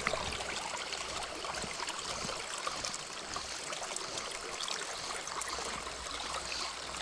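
Small spring creek running and trickling steadily over its bed.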